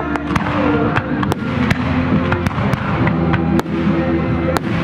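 Fireworks going off in a rapid, irregular string of sharp bangs and crackles, over music with held notes.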